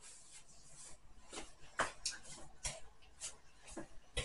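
Faint rustling of clothing and hair as a person moves about, with several short, soft brushing strokes from about a second in, roughly every half second.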